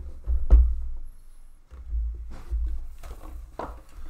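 Low rumbling handling noise from a camera being moved about by hand, with a couple of sharp knocks, one about half a second in and one near the end.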